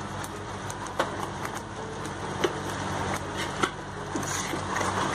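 Onion and ginger-garlic paste frying in hot oil in a kadhai, stirred with a metal ladle: a steady sizzle, with sharp clicks of the ladle against the pan every second or so, over a low steady hum.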